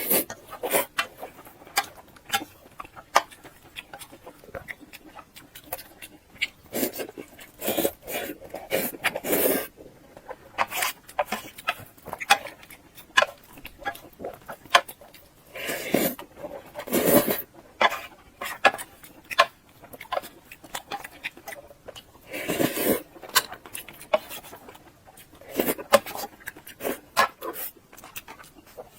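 Close-miked eating sounds: wet chewing and lip smacking on soft, fatty pork belly, with many short clicks and a few louder, longer mouthfuls about halfway through and again later.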